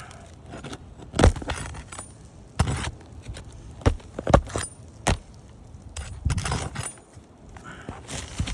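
Asphalt roof shingles being worked loose and pried up with a metal tool: an irregular series of sharp clinks, scrapes and short cracks.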